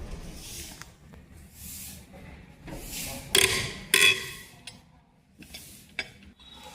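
Repeated rubbing and scraping from a vehicle wheel, the noise the owner is complaining about, with two louder squeaky scrapes about three and four seconds in and a sharp click near six seconds.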